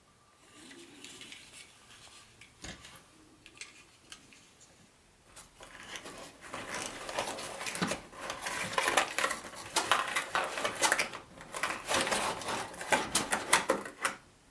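Small hard parts of an HO-scale model train set being handled: a soft rustle at first, then from about six seconds in a dense run of clicks and clatters.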